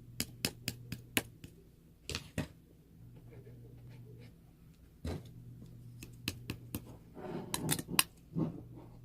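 Irregular sharp clicks and taps, some in quick clusters, over a low steady hum.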